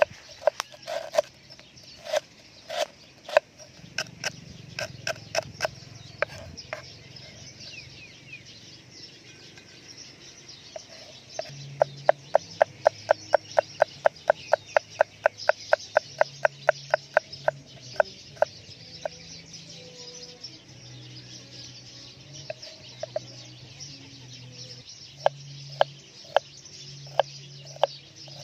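Cleaver chopping on a wooden chopping board: sharp knocks as lemongrass is sliced, then a fast, even run of about four chops a second through garlic cloves, then slower cuts through bilimbi near the end.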